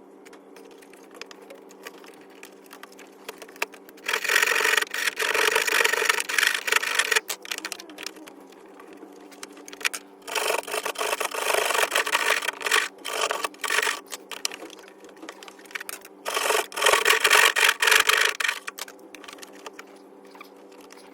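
Sawing through a wall to cut the opening for an electrical outlet, in three spells of rapid strokes: about four seconds in, about ten seconds in for the longest spell, and briefly near the end. A faint steady hum runs underneath.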